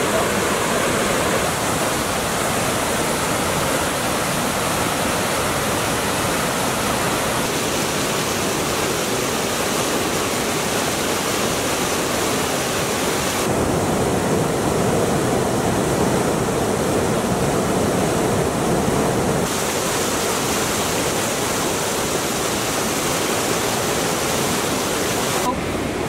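Mountain stream rushing over rocks, a steady wash of white water. Its tone changes abruptly about halfway through, deeper for several seconds, then brighter again.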